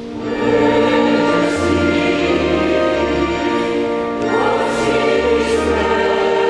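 Mixed church choir singing a hymn with electronic organ accompaniment, held chords over sustained bass notes that move every second or so. The music fades in at the start.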